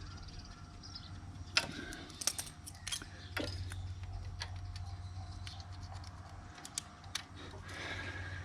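Scattered small metallic clicks and taps as steel surgical tweezers work wires into a worn Harley stator plug, over a low steady hum.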